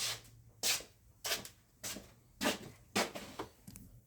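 Ratchet wrench tightening the rocker arm bolts, worked back and forth with a short burst of rapid clicking on each stroke, about every half second.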